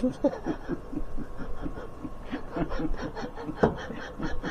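Laughter: a run of quick, repeated chuckles.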